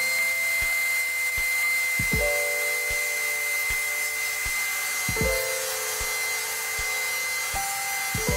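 Bench buffer's motor running with a steady high whine as wood is pressed against its spinning cloth buffing wheel.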